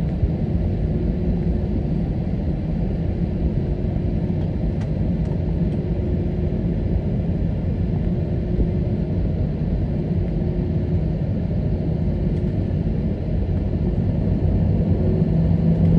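Airbus A321neo cabin noise while the airliner rolls on the ground just after landing: a steady low rumble of the engines and wheels, with a faint steady hum.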